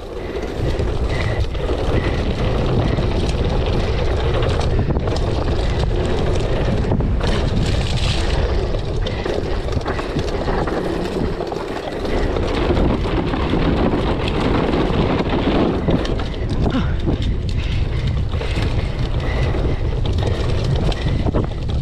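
Steady wind rush over the microphone of a mountain bike descending fast, with the tyres rolling through a wet, muddy trail.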